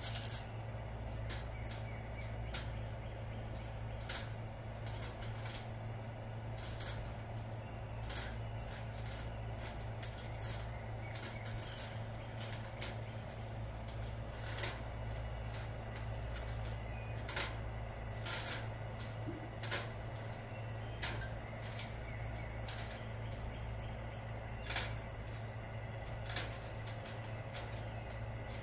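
Metal hex-head screws clicking against a welded wire mesh as they are dropped one at a time into its openings, irregularly every second or two, with one louder clack about three-quarters of the way through. A steady low hum runs underneath.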